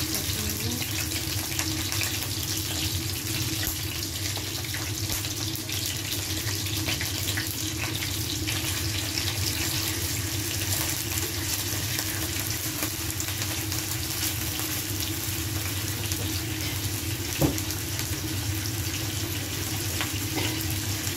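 Grouper head pieces sizzling in hot oil in a frying pan, a steady hiss dotted with fine crackles, over a low hum. One sharp click about three-quarters of the way through.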